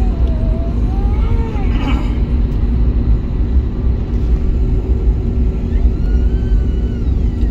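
Cabin noise inside an Airbus A321neo taxiing: a steady low rumble from the engines at taxi power and the rolling airframe, with a steady hum over it. Faint voices come through briefly about a second in and again near the end.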